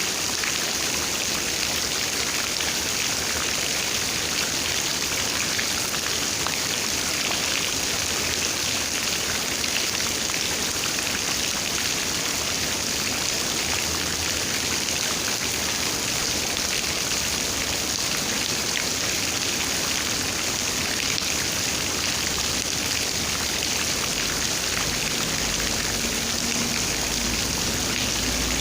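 Steady rain falling, a dense, even hiss with the patter of countless drops. A low rumble comes in near the end.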